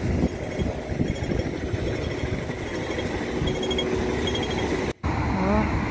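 Steady road traffic noise from passing vehicles, a low rumble of engines and tyres, with a brief dropout of sound near the end.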